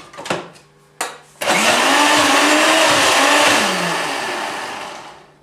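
Electric mixer-grinder pulsed briefly to grind cooked spinach, potato and green chillies into a coarse purée. A few handling clicks, then the motor starts about a second and a half in, runs with its pitch wavering under the load, and winds down near the end.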